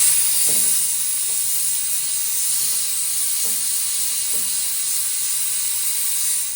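Handheld spot sandblaster running: a steady hiss of compressed air and abrasive sand blasting the pitted steel floor pan, which cuts off just after the end.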